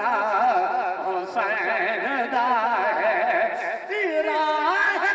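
A man singing a devotional naat, drawing out one long wavering melismatic line with a wide vibrato. The pitch steps up about four seconds in.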